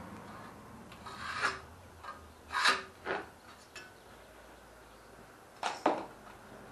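Several short scraping strokes of a hand knife drawn along a steel rule, cutting paper patterns laid on thin sheet iron; two of the loudest come close together near the end.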